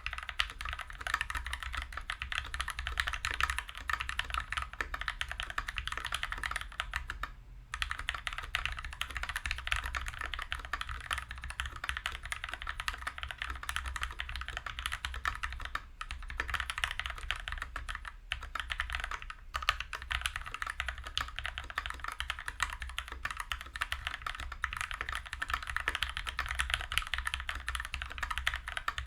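Continuous typing on a KBD75v2 mechanical keyboard with a brass plate and no sound dampening, fitted with Krytox-lubed Gateron Yellow linear switches and GMK keycaps: a dense run of keystroke clacks, with a short pause about seven seconds in and a couple of brief lulls later.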